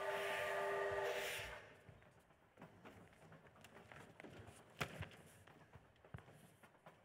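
Steam train whistle sound effect, several tones sounding together over hissing steam, cutting off about a second and a half in. Faint knocks and shuffles of props being moved on the stage follow, the sharpest about five seconds in.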